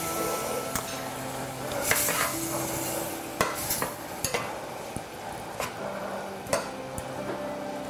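A large metal spoon stirring chicken and mushrooms through a cornstarch-thickened sauce in a stainless steel saucepan. The sauce sizzles, and the spoon clinks against the pan every second or so.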